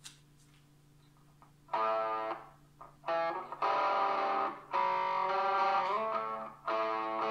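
Electric guitar played through a heavily modded Ibanez overdrive pedal and an amplifier. The pedal's clipping diodes are swapped for a red LED and a Schottky diode and its gain is cranked, giving a harsh, asymmetrically clipped, heavily distorted tone. After a second or so of steady amp hum, several chords are struck and held, with short breaks between them.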